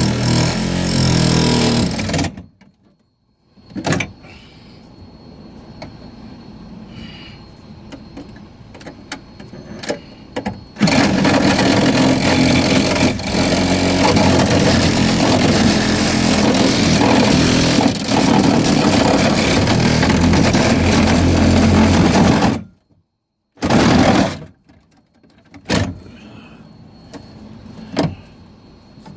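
Handheld power cutting tool running and cutting across a car door's inner panel: the cut stops about two seconds in, starts again about eleven seconds in and runs until about twenty-three seconds, then one brief burst follows. Light clicks and knocks come between the cuts.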